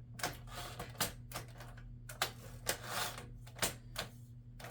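Smith Corona Galaxie 12 manual typewriter being worked at the backspace and tab keys: a string of sharp mechanical clicks and clacks at uneven spacing as the keys are pressed and the carriage moves and catches.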